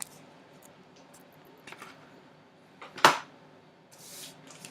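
Light handling noises at a table: a few faint clicks, one sharp knock about three seconds in, and a brief rustle near the end.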